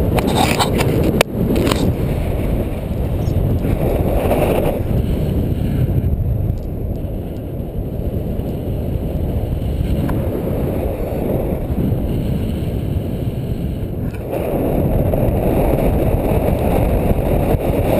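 Wind from the airspeed of a paraglider in flight rushing over the camera microphone as a steady low rumble. The rumble eases for several seconds in the middle and strengthens again near the end. There is one sharp click about a second in.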